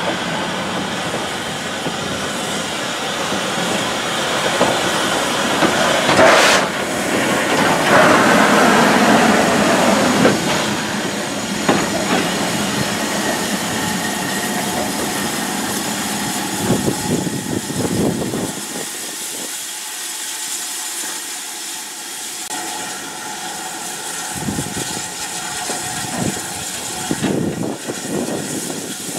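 Ivatt Class 2MT 2-6-0 steam locomotive moving slowly past at close range: a steady hiss and rush of steam with wheels clicking over the rail joints. It is loudest about six to ten seconds in.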